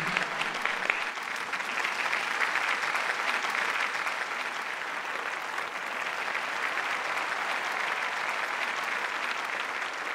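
Studio audience applauding steadily: many hands clapping in a dense, even patter.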